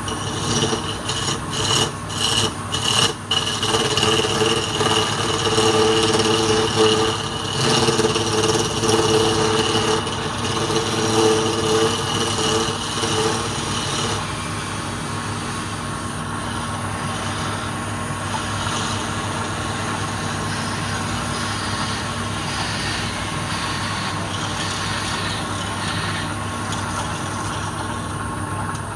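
Wood lathe running with a flat steel scraper held against the face of a spinning palm-wood disc, a steady motor hum under a loud uneven scraping. For about the first half the cut sings with a steady pitched whine; after that the scraping is lighter and even.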